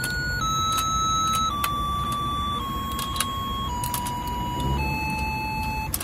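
Battery-operated toy fishing game playing its electronic beeping tune, a slow run of single notes stepping down in pitch about one per second, over the low hum of its motor turning the pond board and a few plastic clicks.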